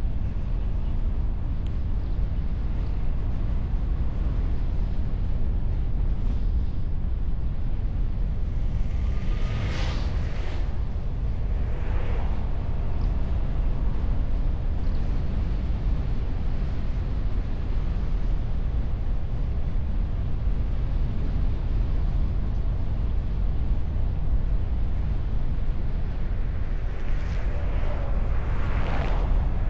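Steady low wind and road rumble at a bonnet-mounted camera on a moving car, muffled by its windshield. Passing vehicles swell up and fade away about ten and twelve seconds in, and twice more near the end.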